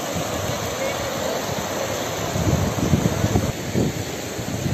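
Floodwater of a swollen brook rushing past in a steady roar, with uneven low buffeting mixed in.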